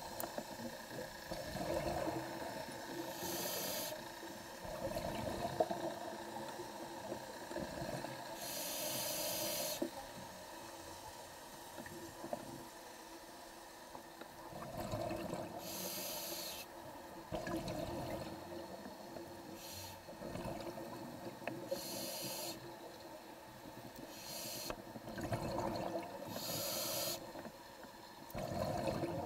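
Scuba diver breathing through a demand regulator underwater: a short hissing inhale every few seconds, each followed by the bubbling of exhaled air.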